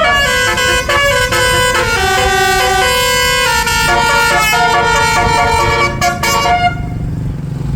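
Bus telolet horn, a set of tuned air horns, playing a quick melody of stepped notes with several sounding together, then cutting off suddenly near the end. A low engine rumble runs underneath.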